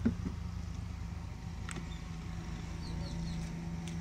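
Small motorcycle engine running at steady revs, a low drone that grows a little stronger near the end; it is being worked hard. A single sharp knock right at the start.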